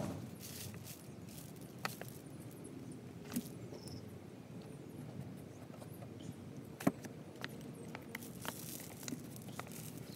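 Scattered soft knocks and clicks of craft handling: a cardboard tube and a plastic glue bottle moved and set down on a table, with foam sheet pressed onto the tube, over a faint steady background.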